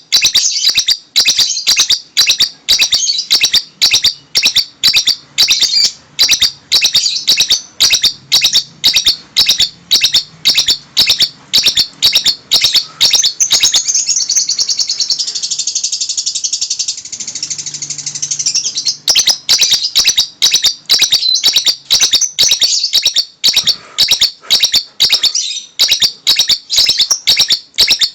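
Paskun lovebird singing an unusual song, which the owner calls strange: high-pitched chirps repeated about twice a second, running together into an unbroken trill for a few seconds midway, then back to rapid chirps.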